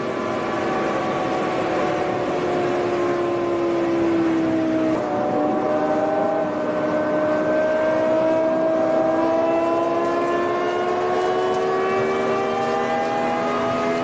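Supercharged V10 of a BMW E60 M5, heard from inside the cabin under way at speed. The engine note sags slightly over the first few seconds, then climbs steadily through the rest as the car pulls harder in gear.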